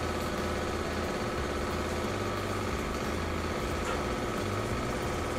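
A steady engine-like drone with a low hum, unchanging throughout.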